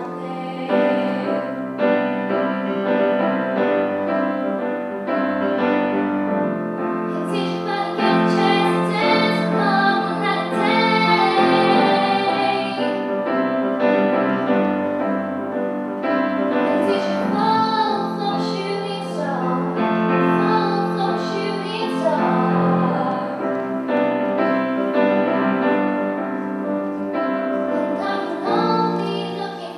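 A female solo singer performing a pop ballad into a microphone, accompanied by a grand piano.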